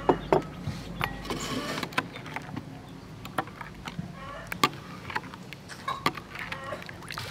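Metal spoon stirring thin chili pickle sauce in a ceramic bowl, clinking sharply against the bowl every second or so.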